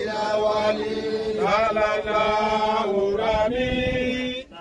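A solo voice chanting in long held notes, with phrases of about a second and a half and short breaks between them.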